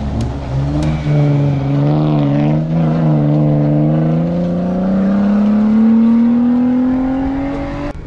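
Off-road race vehicle's engine revving hard through a dirt bend, its pitch rising and falling with the throttle, then climbing steadily for about five seconds as it accelerates away up the road.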